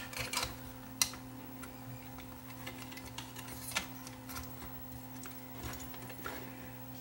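Scattered light clicks and taps of small metal parts as a capstan motor is fitted by hand into a cassette deck's metal mechanism, the sharpest click about a second in.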